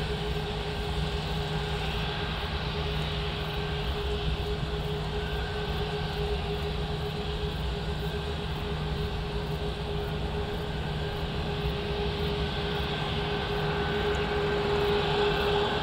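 Airbus A340-600's four Rolls-Royce Trent 500 turbofans at taxi power: a steady whine of two held tones over a low rumble, growing a little louder near the end.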